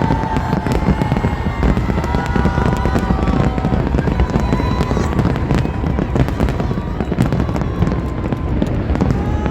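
Aerial fireworks going off in a dense, continuous barrage of bangs and crackling, with a few held whistling tones over it.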